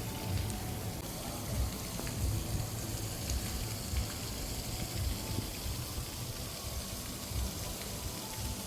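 Strong wind gusting onto the microphone in irregular low buffeting thumps, over a steady rushing hiss of wind-driven surf or rain.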